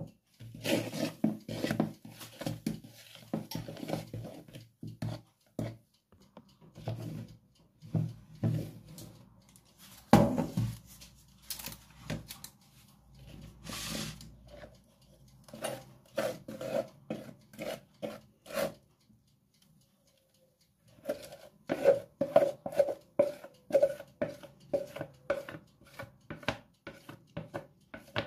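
Wooden spoon stirring and scraping batter in a plastic mixing bowl, in runs of quick knocks and scrapes against the bowl's sides, with a short pause near the end before a final run.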